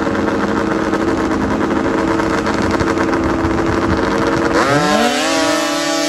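Snowmobile engines running at the start line of a grass drag strip. About four and a half seconds in, one engine's pitch climbs sharply and levels off high as a sled launches down the strip.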